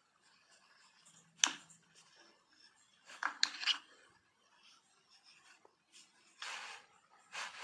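Hand-held loop tool scraping and cutting into clay in a few short strokes, with a sharp click about a second and a half in.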